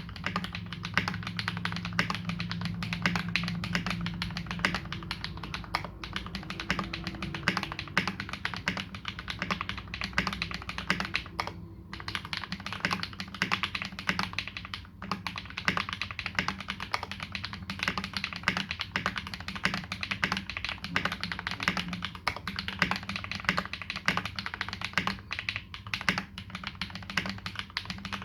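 Continuous fast typing on a KBD75v2 custom mechanical keyboard with lubed Massdrop Holy Panda tactile switches and GMK Dolch keycaps: a dense run of key clacks, with short breaks about twelve and fifteen seconds in.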